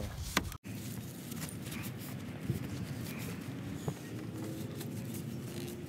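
Paper towel being rubbed over a car's kidney grille slats and chrome surround: a soft, irregular scratchy rustle with a few small clicks, broken by a brief gap about half a second in.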